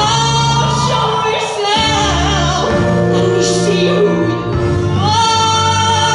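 Women's show choir performance: female voices singing long held notes over live band accompaniment.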